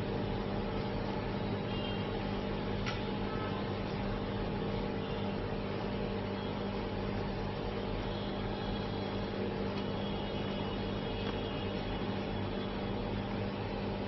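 Steady electric blower hum with a fan-like hiss and low steady tones from bench rework equipment, with one faint click about three seconds in.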